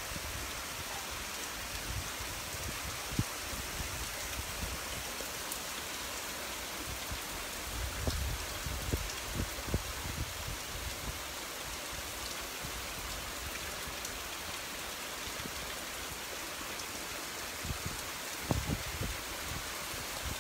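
Steady heavy rain falling on pavement and ground, an even hiss. Brief low rumbles break in about eight to ten seconds in and again near the end.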